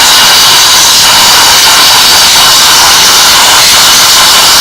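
Steam cleaner spraying a jet of steam onto an engine: a loud, steady hiss.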